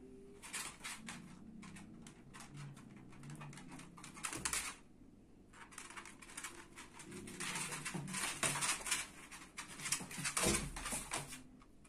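Claws and paws of a cat and a terrier skittering and tapping on a hard floor as they scuffle, in quick irregular clicks that grow busier in the second half, with a heavier thump near the end.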